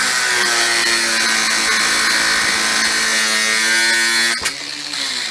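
Cordless angle grinder with a cut-off disc cutting through a steel bolt: a steady motor whine with a harsh grinding hiss. It is switched off about four and a half seconds in and winds down, falling in pitch.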